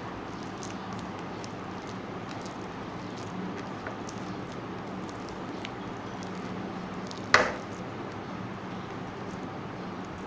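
Bare hand squeezing and mashing soft taro and dried-fish paste on a ceramic plate: quiet squishing over a steady background hiss, with one sharp knock a little past halfway.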